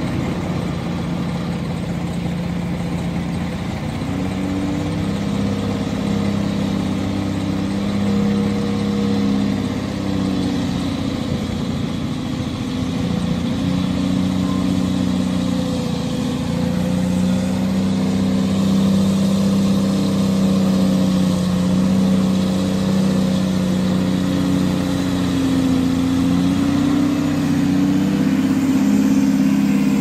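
Diesel engine of a loaded logging truck pulling hard up a gravel grade. It runs steadily with small shifts in pitch and grows gradually louder as the truck approaches.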